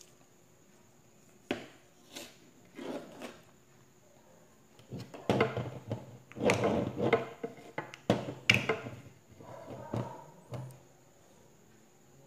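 Handling noises of food and packaging on a tabletop: a few sharp knocks and clicks, with a busy stretch of rustling and clatter in the middle.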